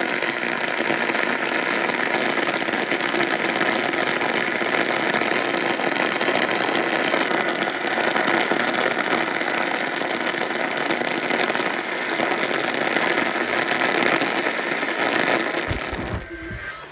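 Steady crackling radio static from a receiver, which drops away abruptly near the end.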